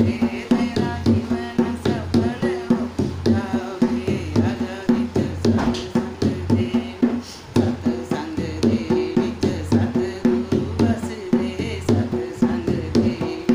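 A woman singing a Punjabi devotional bhajan to her own dholak accompaniment. The hand-played barrel drum keeps a steady beat of strokes with a ringing tone, under the sung lines.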